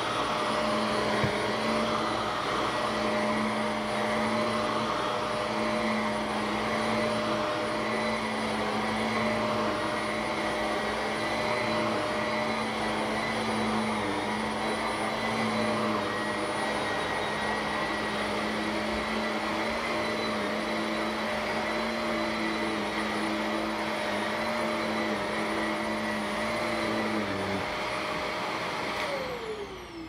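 Upright vacuum cleaner running steadily with a constant motor whine, then switched off near the end, its whine falling in pitch as the motor spins down.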